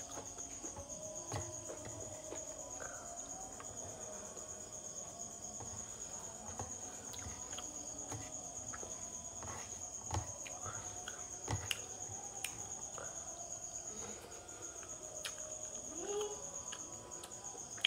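Crickets chirring steadily at a high pitch, with scattered soft clicks and smacks of eating by hand from a steel plate close to the microphone.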